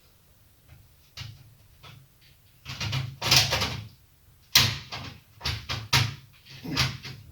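Plastic scraping and sharp clicks as a smoke alarm is handled during a battery change. A longer rustling, scraping stretch about three seconds in is followed by four sharp clicks or knocks.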